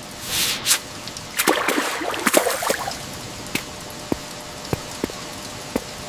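Steady rain falling, with splashy bursts in the first few seconds and then single drips plinking about every half second.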